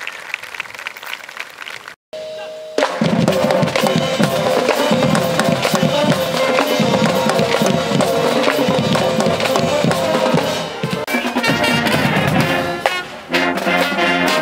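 Marching band playing loudly: brass, including sousaphones and trumpets, over a drumline with snare and bass drums. It comes in about three seconds in.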